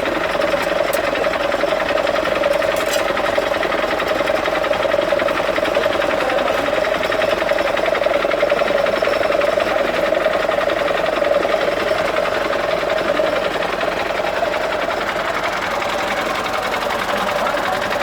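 Car engine running steadily with a fast, even clatter.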